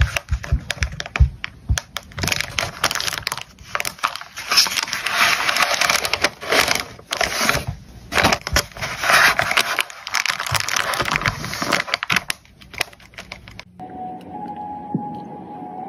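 Crinkling and rustling of a clear plastic sleeve and kraft paper being handled and folded around a photocard, full of small crackles and clicks. Near the end it stops abruptly and gives way to music.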